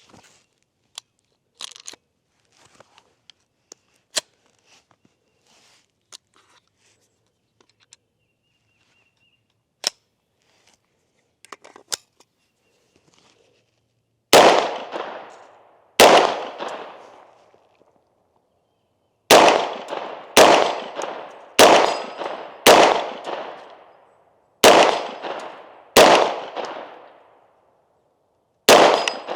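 Bear Creek Arsenal bufferless 9mm AR carbine: light metallic clicks and clanks of the rifle being handled, then about nine single shots in the second half, one to two seconds apart, each a sharp crack with a long echoing tail. The rifle is still having feeding trouble.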